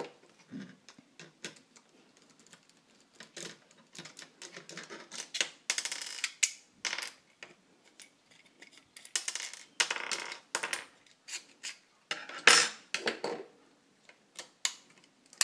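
3D-printed plastic clamp parts and small metal pieces handled and unscrewed during disassembly: irregular clicks, scrapes and rattles, with one sharp knock about three quarters of the way through.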